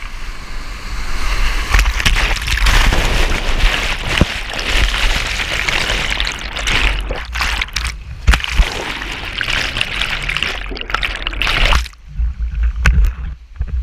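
High-flow whitewater rapids rushing and splashing over a kayak, with foam washing over the GoPro so the water crashes right on the microphone, heard through the camera's waterproof housing. About twelve seconds in the sound turns suddenly muffled, leaving low thumps, as the camera is buried in the water.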